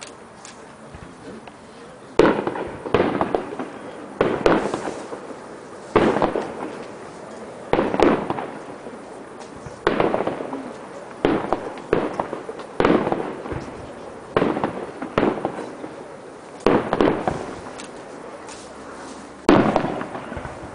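Fireworks shells bursting overhead: more than a dozen sharp bangs, about one to two seconds apart, each followed by a rolling echo. They begin about two seconds in.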